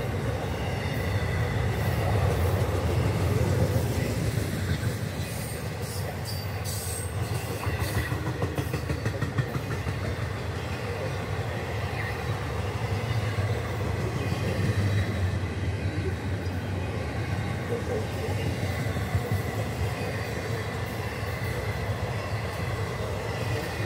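Florida East Coast Railway intermodal freight train passing at speed: the steady low rumble of container and trailer cars' wheels on the rail, with a few clanks about six to seven seconds in.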